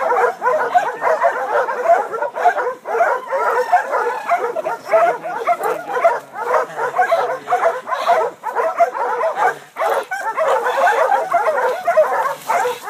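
A pack of hog-hunting dogs barking and yipping without pause, many voices overlapping, as they work a hog.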